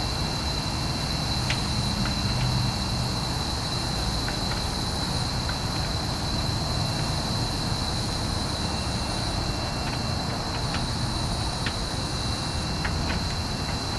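Electric-converted 1978 Porsche 911 Carrera rolling slowly in reverse with almost no drive noise: a low steady rumble and a constant high-pitched whine. There are a few faint creaks or ticks, which the owner puts down to the car's polyurethane suspension bushings.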